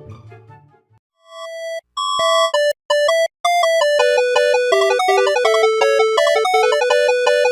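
Orchestral music with plucked strings fades out within the first second. After a short gap, a fast electronic melody of short, pure beeping tones starts. It cuts out briefly twice and then runs on steadily.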